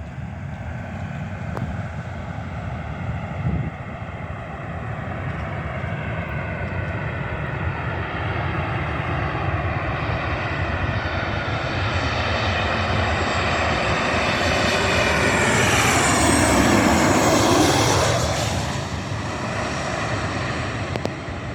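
Boeing 737-800 jet airliner on landing approach, its CFM56-7B turbofans growing steadily louder to a peak about sixteen to eighteen seconds in. The engine whine falls in pitch as the plane goes by, then the sound eases off.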